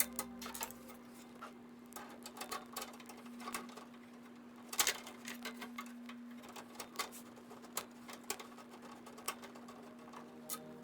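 Irregular clicks, taps and light scrapes of hands working on computer hardware, fitting a motherboard into a desktop case, with one louder knock about five seconds in. A steady low hum runs underneath.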